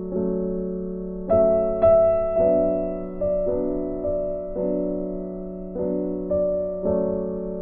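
Background music: slow, gentle piano-style keyboard notes and chords, each struck and left to fade, about once or twice a second.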